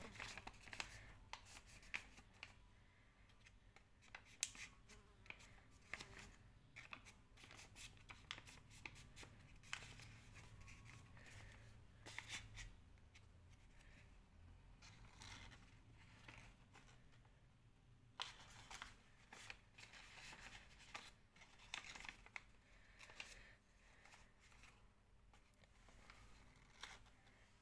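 Faint rustling and crinkling of a folded paper envelope being handled and pressed, in short irregular bursts of crackle.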